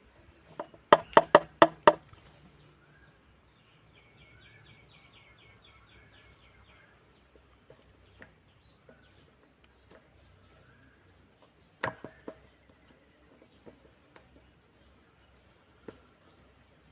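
A quick burst of five sharp knocks about a second in, then a few more near the middle. Birds chirp faintly throughout, one giving a fast run of chirps.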